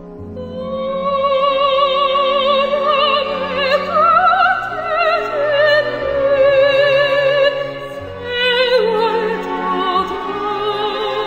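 Background music in an operatic style: a slow melody of long held notes with a wide vibrato over soft low accompaniment.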